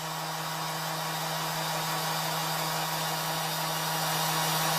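Electric sander running free at a steady speed, an even whir over a low, constant hum. It is an acoustic check after a drop test, where any change in its tone or pitch would point to a fault in the motor.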